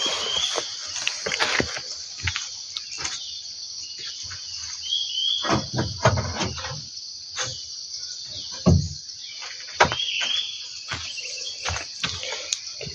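Steady high-pitched insect chorus of crickets. A short rising chirp recurs about every five seconds, and there are scattered sharp clicks and a few low thumps.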